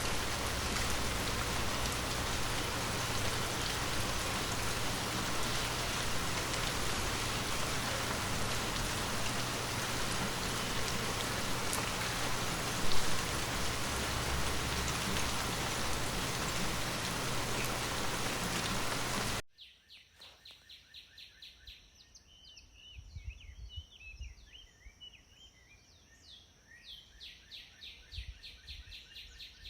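A steady rush of falling water, heavy like rain, that cuts off suddenly about two-thirds of the way in. Quiet follows, with birds chirping in short repeated calls over a steady high-pitched drone.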